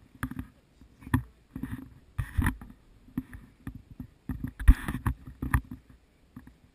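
Irregular knocks, creaks and rustles of a wooden elephant-riding seat shifting with the elephant's steps, the loudest knock about two thirds of the way in.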